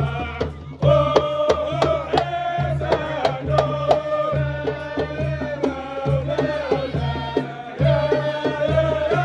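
A devotional chant (taqsid) sung over a steady beat of hand drums in Maghrebi folk style, the melody held on long notes between drum strokes.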